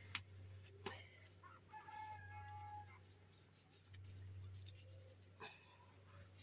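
Near-quiet, with one faint animal call, a held even note lasting about a second, and a few sharp clicks.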